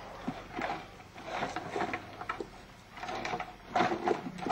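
A children's battery-powered ride-on toy truck driving, its small electric motor and gearbox whirring in uneven surges as its plastic wheels roll over rough ground.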